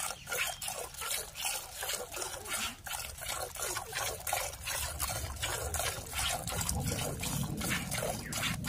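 Cow being milked by hand: milk squirting from the teats in a steady rhythm of short spurts.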